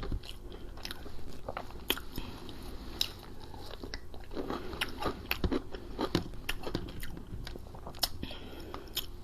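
Close-miked chewing and mouth smacking, with scattered short crunchy clicks as fried food is eaten.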